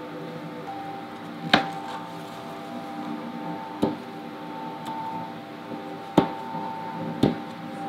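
Four sharp knocks a couple of seconds apart over the steady hum of a machine.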